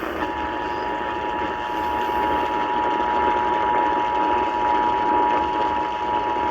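Emergency Alert System attention signal: a steady two-tone alarm over a constant hiss, announcing an EAS test message.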